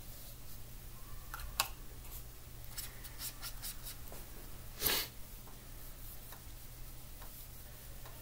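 Quiet handling sounds of watercolour painting: faint ticks and taps of a paintbrush against the paint tray and paper, a sharp click about one and a half seconds in, and one short louder rustle about five seconds in, over a steady low hum.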